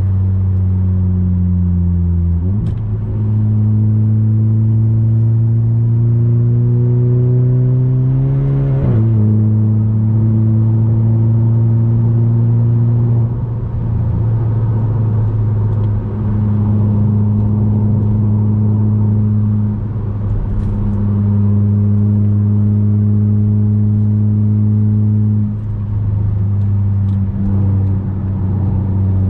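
Turbocharged four-cylinder engine of an Audi A3 8P 2.0 TFSI, fitted with a 2.5-inch downpipe and cat-back exhaust, heard from inside the cabin while driving. About two and a half seconds in, its pitch jumps up and then climbs steadily. It drops suddenly about nine seconds in as the gearbox shifts up, and after that it settles into a steady drone with small changes.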